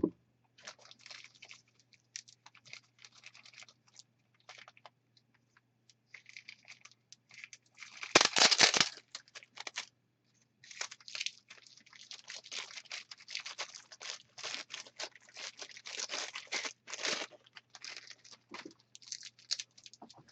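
Packaging being handled and unwrapped: irregular crinkling, rustling and scratching, with a louder burst of rustling about eight seconds in.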